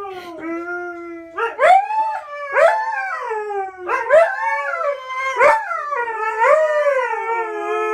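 Two Siberian huskies howling together: a run of wavering howls, each starting sharply and rising then falling in pitch, the voices overlapping.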